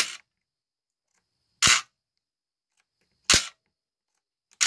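Electric switch motor of a post-war American Flyer three-rail switch track throwing the points back and forth, four sharp snaps about a second and a half apart. The switch motor is working and throwing cleanly.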